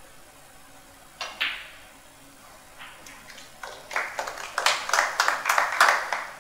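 Snooker balls clicking sharply about a second in, as the cue strikes the cue ball and it hits the black. Then scattered audience applause for the pot over the last two and a half seconds.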